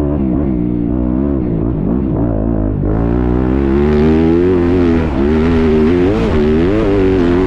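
Motocross bike engine heard up close from the rider's onboard camera, its pitch rising and falling as the throttle is worked through the corners. About three seconds in the throttle opens harder and the engine gets louder and harsher.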